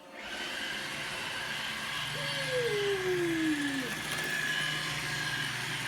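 Roomba robot vacuum starting up and running: its motor, fan and brushes set in with a steady whirr and hold an even hum with a high whine on top. About two seconds in, a single smooth falling tone slides down over nearly two seconds.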